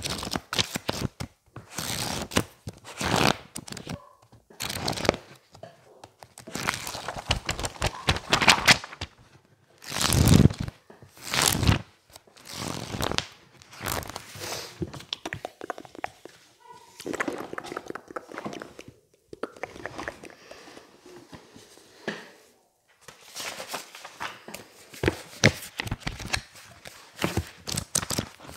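Pages of a thick paperback textbook riffled and flipped fast by hand, in quick irregular bursts of paper rustle with short pauses between, the loudest about ten seconds in.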